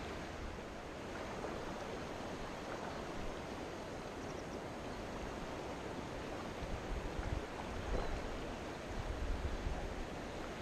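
River water rushing steadily over a shallow, stony riffle close to the microphone, with low rumbles of wind on the microphone now and then, strongest in the second half.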